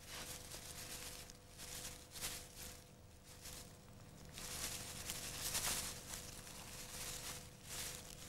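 Faint rustling of dry leaves and nest material in irregular bursts as a wood mouse shifts about over her young in the nest, loudest a little past the middle.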